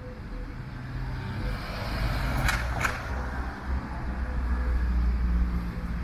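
A car driving past on the street: a low engine rumble and tyre hiss that build up and hold. Two sharp clicks sound close together about halfway through.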